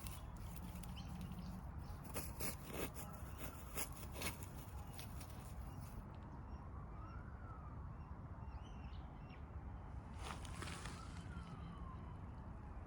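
A distant emergency-vehicle siren wailing, its pitch rising and falling slowly every few seconds, with a few sharp clicks over it.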